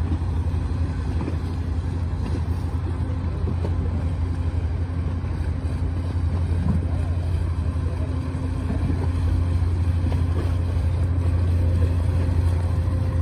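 Fireboat William Lyon Mackenzie's diesel engines running at low speed as it comes in: a steady low drone that grows a little louder near the end as the boat draws closer.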